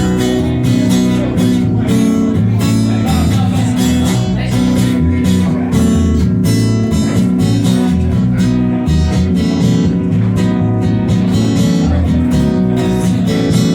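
Acoustic guitar strummed in a steady rhythm with bass guitar notes underneath, an instrumental passage between sung verses.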